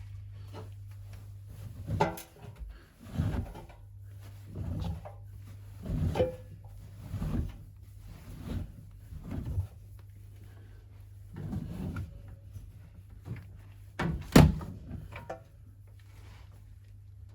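Beko WML 71433 NP washing machine: a steady low hum with a series of irregular thuds and knocks, about one every second or so, the loudest near the end.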